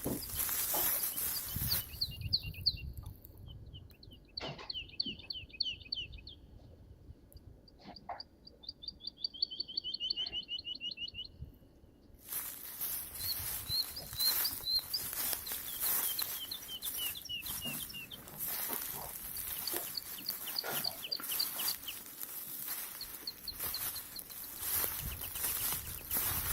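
A songbird singing repeated short trilled phrases, each a quick run of notes falling in pitch. A rushing background noise is there at the start and again from about halfway on.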